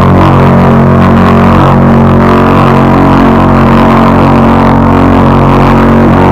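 Tugboat whistle sound used as a bus horn, giving one long, loud, deep steady blast rich in overtones.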